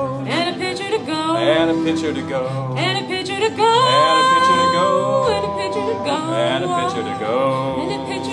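Country-style song with no words sung: a stepping bass line under sliding, wavering melody lines.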